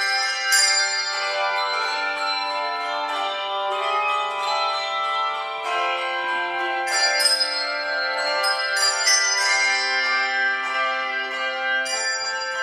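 Handbell choir playing a piece: many tuned handbells rung one after another, each note ringing on so that several sound together, with longer low notes held under quicker higher ones.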